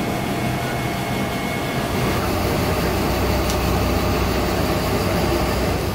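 Steady air-conditioning and ventilation hum inside the cabin of a Boeing 747-400 parked at the gate. About two seconds in it turns to a deeper, stronger low hum.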